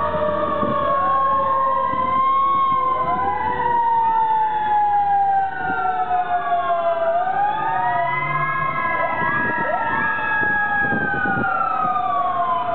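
Sirens of several passing fire engines and emergency vehicles wailing at once, their slow rising and falling tones overlapping, with a few quicker rising whoops near the end.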